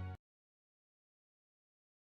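Background music cuts off abruptly right at the start, then dead digital silence.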